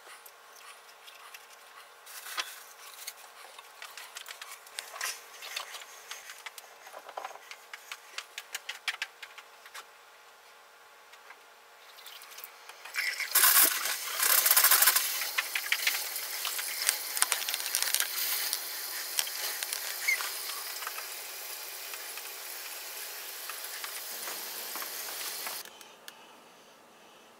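A few seconds of light clicks and knocks, then a loud rushing hiss with sputtering crackle starts suddenly about halfway through and cuts off sharply near the end. This is water rushing through the pipes after the repair with a SharkBite fitting.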